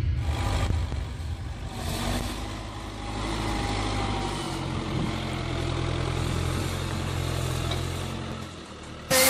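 Tractor diesel engine running under load as a front-loader tractor pushes grass up a silage pit; the engine note shifts about halfway through and fades away near the end.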